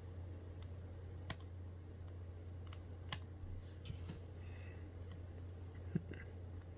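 A few light clicks and taps of metal tweezers working on a tablet's internal parts, two sharper clicks about a second and three seconds in, over a steady low hum.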